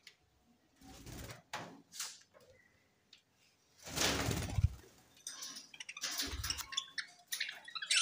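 A flock of budgerigars chirping and chattering in short, high notes, busiest in the second half. Bursts of rustling noise come through several times, the loudest about halfway through.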